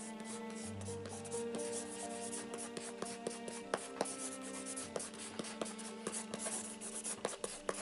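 Pencil scribbling hard on paper in quick scratchy strokes, which come thicker and louder from about halfway in. Background music of long held notes plays underneath.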